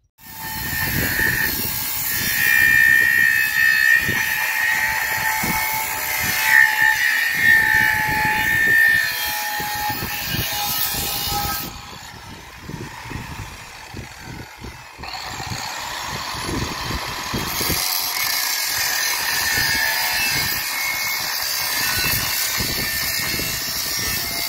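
Angle grinder with a cut-off disc cutting through a steel beam, a loud whining grind. The cutting eases off for a few seconds about halfway, then resumes.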